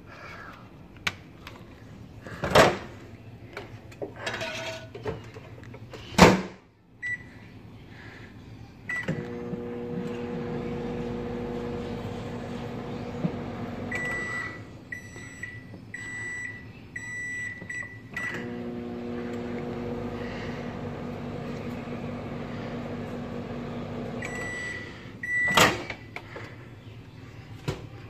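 LG over-the-range microwave oven in use. The door clunks loudly a couple of times, the keypad beeps, and the oven runs with a steady hum for about five seconds. It beeps several times, runs again for about six seconds, beeps again, and the door pops open with a loud clack near the end.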